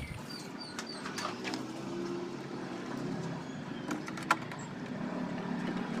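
Small clicks and rustles of wires and spade connectors being handled, with one sharper click about four seconds in, over a low steady drone.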